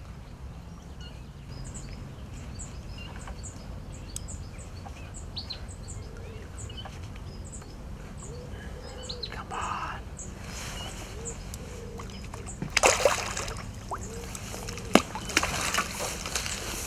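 A hooked carp splashing and thrashing at the water's surface close to the bank while being played in, in loud bursts that begin about three-quarters of the way through. Small birds chirp repeatedly before the splashing starts.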